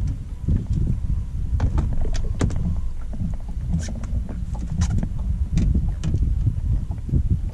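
Fishing rods, reels and line being handled on a boat, giving scattered sharp clicks and knocks over a continuous low, uneven rumble.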